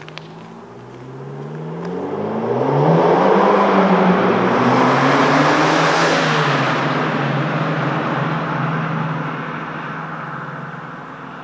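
Fiat 500 Abarth with a Magneti Marelli sport exhaust driving past in a tunnel, its turbocharged 1.4-litre four-cylinder revving up in pitch as it approaches. It is loudest as it passes about six seconds in, then fades as it drives away.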